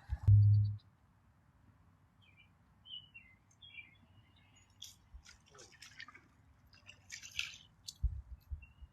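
Small birds chirping in short calls, with a loud low thump about half a second in and scattered clicks and a brief rustle near the end.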